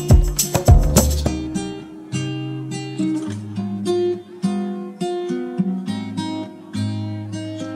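Background music: acoustic guitar playing plucked, picked notes, with drum hits that stop about a second in.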